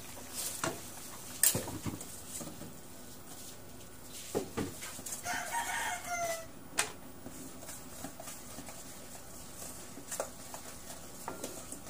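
A metal ladle knocks and clinks against a metal pan of soup several times, the loudest knock about a second and a half in. A rooster crows once, about five seconds in, its call falling in pitch at the end.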